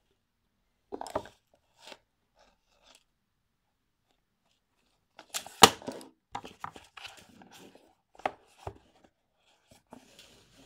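Rigid cardboard product box being handled and opened: scattered rustles, scrapes and knocks of the lid and packaging, the loudest a sharp one about five and a half seconds in.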